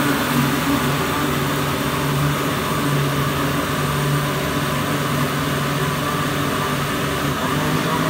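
Countertop electric blender running steadily, its motor blending an apple milkshake.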